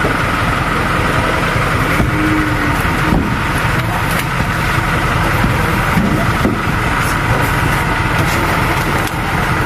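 A motor running steadily under scattered knocks and crinkles as a plastic-wrapped seat is pressed into a tricycle sidecar frame.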